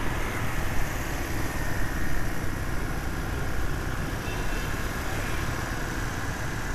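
A motorbike engine running steadily while riding through city traffic, with other motorbikes around and a rumble of wind on the microphone.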